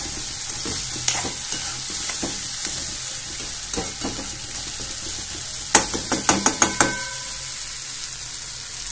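Chopped vegetables sizzling in oil in a kadai on a full gas flame, with a metal spoon scraping and clicking against the pan as they are stirred. About two-thirds of the way through, about six quick, sharp metallic taps of the spoon on the pan, each ringing briefly.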